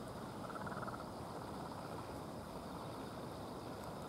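Steady rushing of a flowing river, with a brief high chirring call, such as a frog or insect makes, about half a second in.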